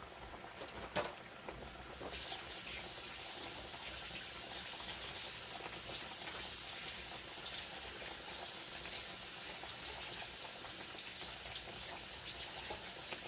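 Water running steadily from a kitchen tap, turned on about two seconds in and shut off near the end, after a light knock about a second in.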